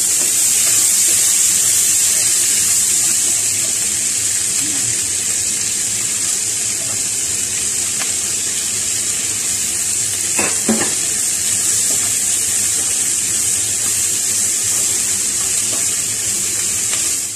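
Sliced onions sizzling steadily in hot oil in a frying pan as they begin to fry.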